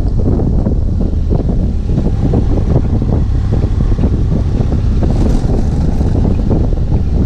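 Heavy wind rumble buffeting the action camera's microphone while riding a BMW F 800 GS Adventure motorcycle on a dirt road, with the bike's parallel-twin engine running underneath.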